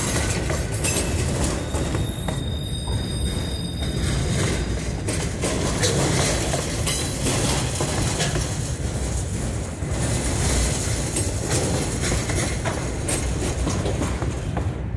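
Freight train boxcars rolling past at close range: a steady rumble of wheels on rail with repeated clicks and knocks. A thin, high wheel squeal runs from about two to four seconds in.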